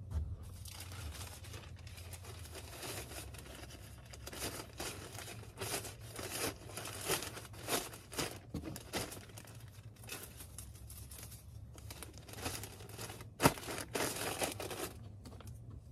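Packaging being handled as a sold item is packed: crinkling and rustling made up of many short crackles, with one sharp snap about thirteen and a half seconds in.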